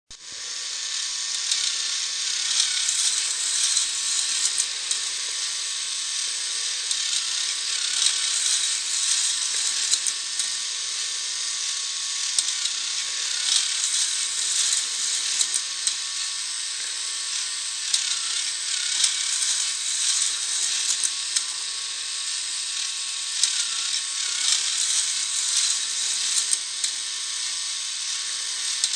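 Plastic K'nex ride mechanisms running: a continuous dense clicking and rattling of plastic gears and drive parts, with a faint steady whine underneath.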